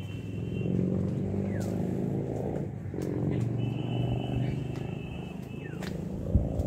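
Low engine rumble, drifting up and down in pitch, with a few short high bird chirps and whistles over it.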